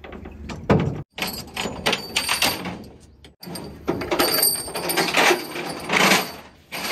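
Steel tie-down chains and a lever chain binder clinking and knocking against the trailer's metal deck, a dense run of sharp metallic clicks and rattles, as the excavator is chained down for transport. The sound breaks off abruptly twice.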